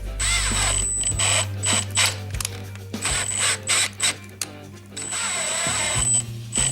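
A run of short, irregular scraping and rubbing strokes as metal shavings are cleaned off a freshly tapped aluminium clutch case, over steady background music.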